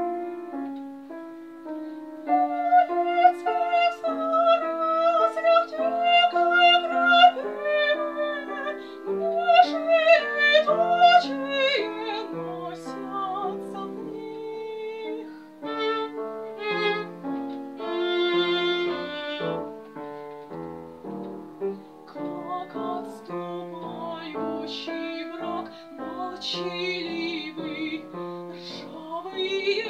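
Classical soprano singing with vibrato, accompanied by cello and piano: a contemporary chamber art song for voice, cello and piano.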